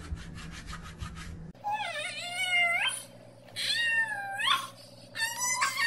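Hands briskly rubbing together for about a second and a half, then a young girl's high-pitched crying: three long wailing cries, each rising in pitch.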